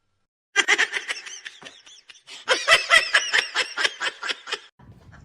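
Laughter: a run of quick, high-pitched laughs starting about half a second in and stopping shortly before the end.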